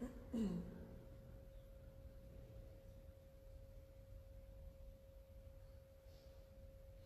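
A faint, steady high-pitched tone with a low hum beneath it, and a short sound that slides down in pitch about half a second in.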